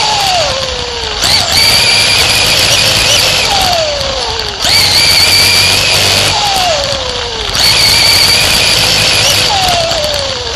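Race car engine heard from on board, running at high revs down each straight and then dropping in pitch as the throttle is lifted for the turns. This repeats about every three seconds, lap after lap on a short dirt oval.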